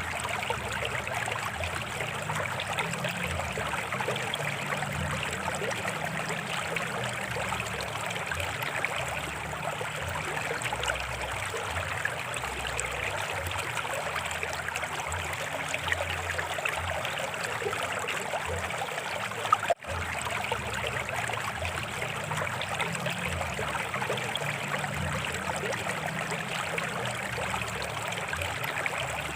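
Small stream flowing steadily with a constant trickling babble. A brief click and dropout breaks it once, about two-thirds of the way through.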